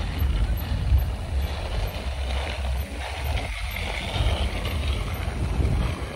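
Wind buffeting the microphone, with bicycle tyres rolling on pavement: an uneven low rumble with steady hiss above it.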